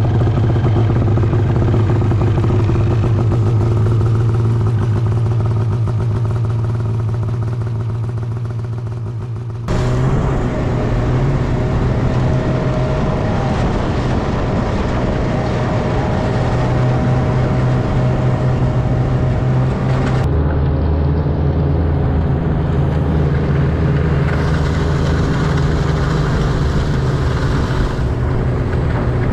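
Polaris snowmobile engine running steadily under way, with an abrupt change in level and engine note about ten seconds in and again about twenty seconds in.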